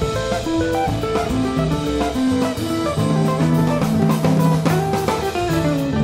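Background instrumental jazz music with a steady drum beat and short plucked melody notes.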